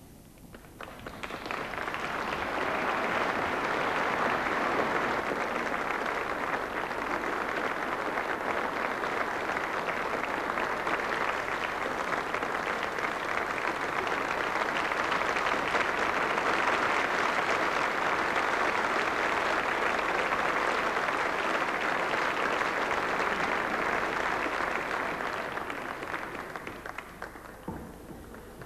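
Audience applauding: the clapping swells over the first couple of seconds, holds steady, and dies away near the end.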